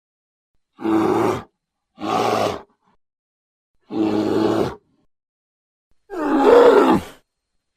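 A bear growling: four short, rough growls with silence between them, the last one longest and loudest.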